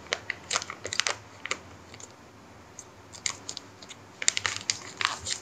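Irregular light clicks and taps of a gift package being handled and opened by hand.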